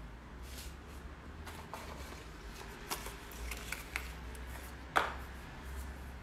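Scattered small clicks and taps over a low steady hum, a few around the middle and one sharper, louder click about five seconds in.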